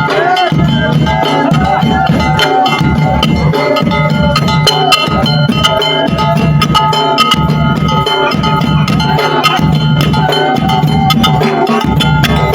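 Moroccan folk music played at a celebration: drums beating a steady, fast rhythm under a sustained melody line.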